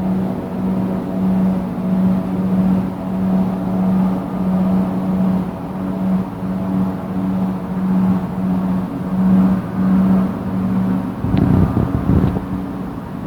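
A distant low, steady drone on one pitch with overtones, swelling and fading about one and a half times a second, like a far-off motor. The recordist compared it to a motor glider or lawn mower and suspects high-voltage power lines or a solar storm. About eleven seconds in, a short rumble with a couple of clicks covers it.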